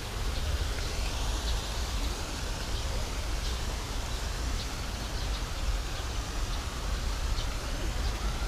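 Outdoor ambience: wind rumbling on the microphone over a steady hiss of distant city traffic, with a few faint short high chirps.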